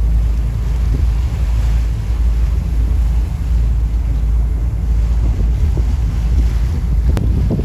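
Wind buffeting the microphone aboard a moving boat on open water: a steady, heavy low rumble with the wash of the water beneath it.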